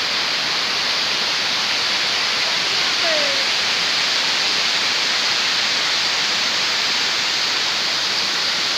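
Steady rushing of a waterfall, an even, unbroken hiss of falling water.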